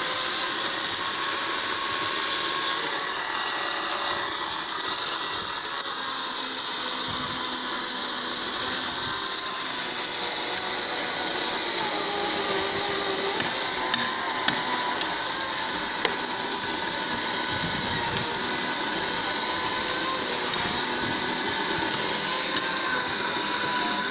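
Kingson electric chainsaw running steadily with its chain cutting into a felled tree trunk: an even high whine and buzz of motor and chain, with no engine sound.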